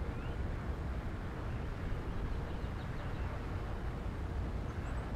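Steady rush of air and electric-motor drone of an E-flite P-51 Mustang 1.2m RC plane in cruising flight, heard from on board the airframe.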